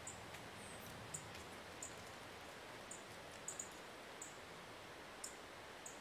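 Soft, steady mountain breeze hiss, with short high-pitched chirps from a small animal about every half second to second, irregularly spaced.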